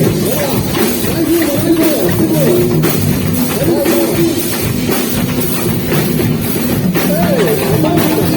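Live band playing a beiradão medley, the Amazonian dance music: a drum kit keeps a steady beat under a saxophone melody with sliding, bending notes.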